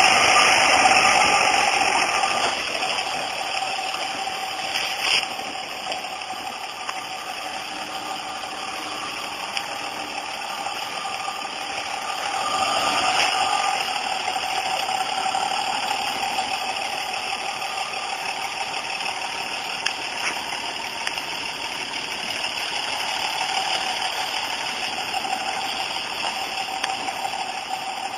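Engine of a 2006 Dodge Ram 2500 pickup running as the truck drives off-road on a dirt track. It is loudest in the first couple of seconds as the truck passes close, then fainter as it moves off, swelling again about halfway through.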